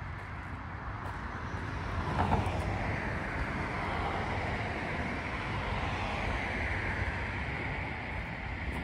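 Road traffic: a car passing on the road, its tyre and engine noise growing louder about two seconds in and staying up.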